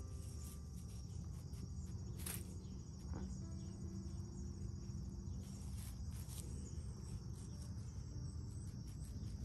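Steady, high-pitched chorus of insects over a low rumble, with a couple of faint brief clicks.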